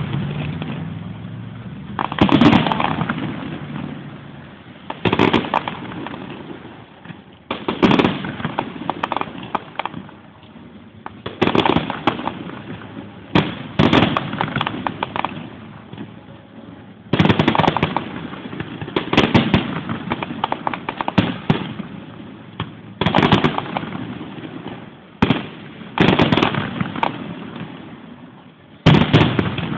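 Aerial fireworks shells bursting in a steady barrage, a sharp bang every one to three seconds, each trailing off into crackle and rumble.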